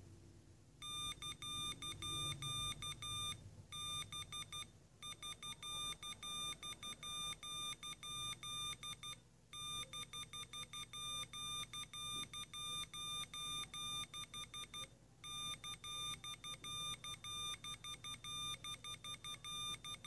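Arduino-driven piezo buzzer beeping out Morse code, damped by a finger pressed on its diaphragm: short and long beeps of one steady pitch, with longer pauses between words, at roughly 10 to 15 words per minute.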